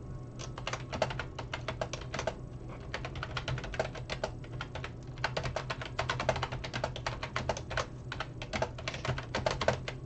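Typing on a computer keyboard: quick runs of keystrokes in several bursts with short pauses between, over a low steady hum.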